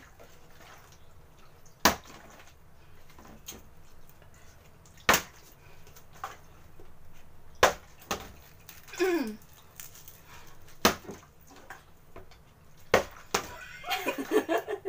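Partly filled plastic water bottle flipped and landing on a tabletop over and over: about six sharp knocks, two to three seconds apart. A burst of voices comes near the end.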